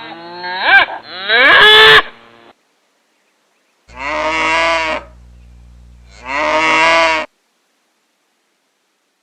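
Cattle mooing: one call tails off in the first couple of seconds, then after a short pause come two more moos about two seconds apart, each lasting about a second, before silence.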